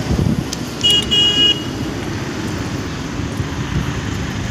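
A vehicle horn beeps twice, a short beep and then a slightly longer one about a second in, over a steady low background rumble.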